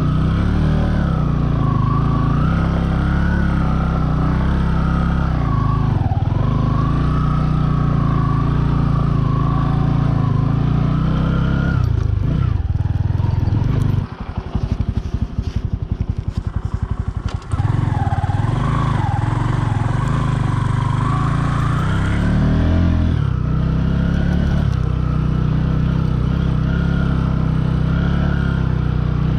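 Bajaj Boxer 150's single-cylinder four-stroke engine running under way, its revs rising and falling. About halfway through the throttle is closed for a few seconds and the engine drops to a quieter, even, rapid beat, then pulls again.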